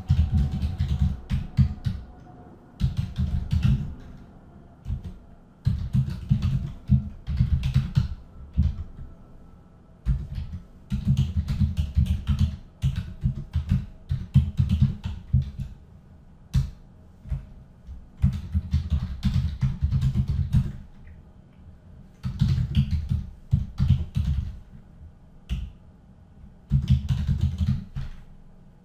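Typing on a computer keyboard: quick runs of keystrokes lasting a second or two, broken by short pauses.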